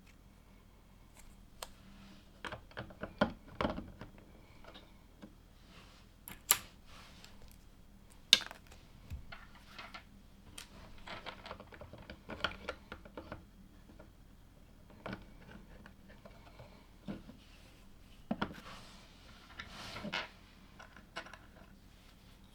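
Plastic LEGO pieces clicking and clattering as they are handled and pressed together, in irregular small clicks with a few sharp snaps. A short rustle about nineteen seconds in.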